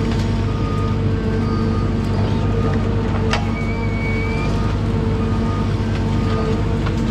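John Deere 1010G forwarder's diesel engine running steadily. A sharp click comes about three seconds in, followed by a short high whine that rises slightly.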